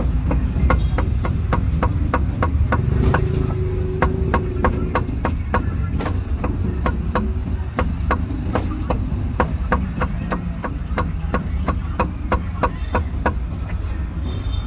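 Cleaver chopping roast meat on a chopping block in a quick, even rhythm of sharp knocks, about four a second, over a steady low traffic rumble.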